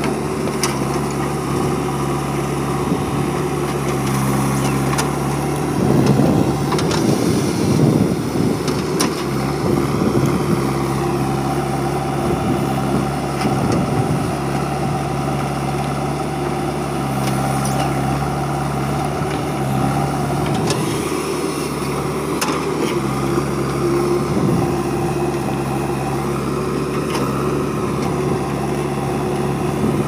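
JCB 3DX backhoe loader's diesel engine running steadily as it works the backhoe arm, digging and loading soil. A rougher, louder stretch comes about six to nine seconds in.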